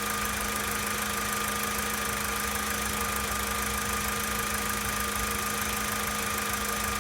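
VW Polo Sedan's engine idling steadily with a fast, even knock, recorded as the engine's knock from a cold start.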